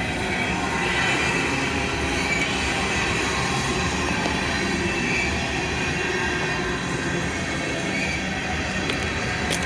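Freight train of tank cars rolling past: a steady rumble of steel wheels on rail, with faint high wheel squeal now and then.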